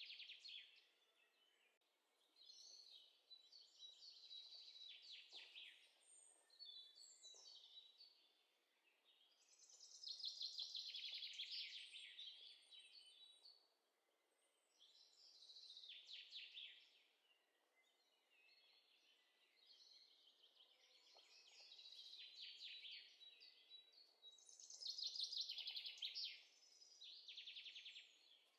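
Faint songbird singing in repeated high phrases of rapid trills and chirps, each a second or two long, with short pauses between them.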